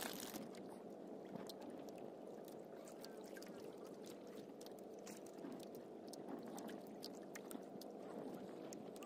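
Water lapping faintly against the hull of a small wooden outrigger fishing boat drifting at sea, with scattered small ticks and splashes and a short knock right at the start.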